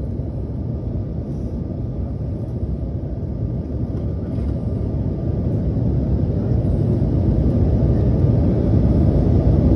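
Airliner cabin noise in flight: a steady, deep rushing rumble of the engines and airflow heard from inside the cabin by a window seat, growing gradually louder.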